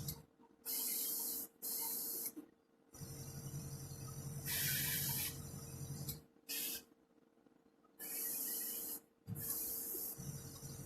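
Airbrush spraying Vallejo acrylic paint in about six short bursts of hiss, each under a second, with pauses between. A low hum comes and goes underneath.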